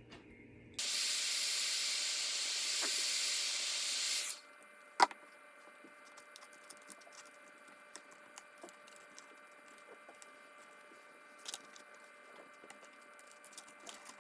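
Heat gun blowing, a steady hiss that starts suddenly, runs for about three and a half seconds and cuts off; then a single sharp click, followed by faint light ticks.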